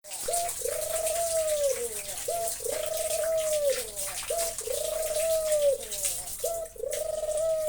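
White (albino, red-eyed) ringneck dove cooing four times, each coo a short note followed by a long drawn-out note that falls away at its end, repeating about every two seconds. Rain hisses steadily behind it.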